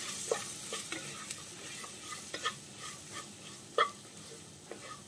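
Wooden spatula stirring and scraping spice-coated hog plum (ambazhanga) pieces in a nonstick pan, with a steady faint sizzle of the hot oil underneath. The scrapes and taps come irregularly; the sharpest is a little before four seconds in.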